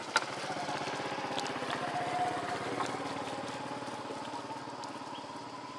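A small engine running steadily, swelling a little and then easing off, with one sharp click just after the start.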